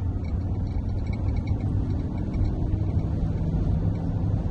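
Steady low road and engine noise inside a moving vehicle's cabin, with a faint steady hum coming in about three seconds in.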